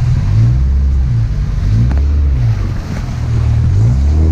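Volkswagen Beetle's engine pulling under load, its revs rising and falling several times as it is driven.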